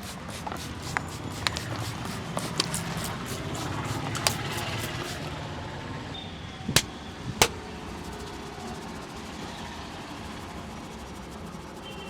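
Head massage by hand: a run of sharp slaps and taps in the first half, then two loud sharp smacks about half a second apart near the middle, over steady street traffic noise.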